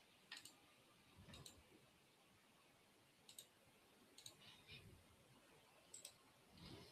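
Near silence broken by a handful of faint, scattered computer mouse clicks, two of them in quick succession near the end.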